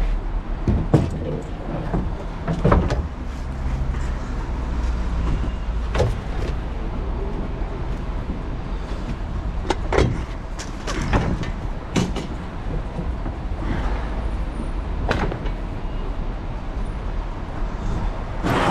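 An engine running steadily with a low rumble, with several sharp knocks and clunks spread through it.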